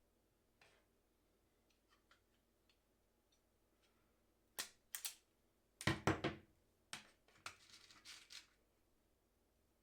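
Pliers being handled: a string of sharp clicks and clacks from about four and a half seconds in, loudest around six seconds, tailing off into a short rattle near eight seconds.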